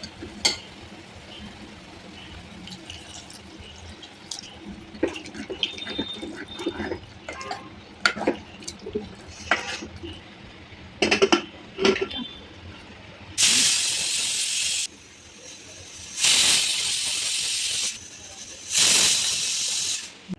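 Kitchen utensils clinking and scraping, then three loud bursts of rushing hiss, each about a second and a half long.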